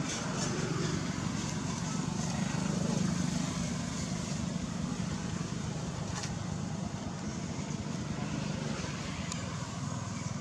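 Steady low rumble of motor vehicle traffic, swelling slightly a couple of seconds in.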